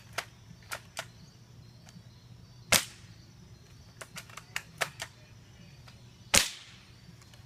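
A 6 mm airsoft sniper rifle fires twice, two sharp pops a little under three seconds apart, the second about six seconds in. Fainter small clicks come between the shots.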